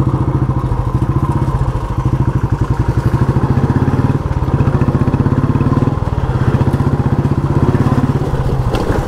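Motorcycle engine running under way with a fast, even exhaust beat; the note shifts briefly about four seconds in and again around six seconds.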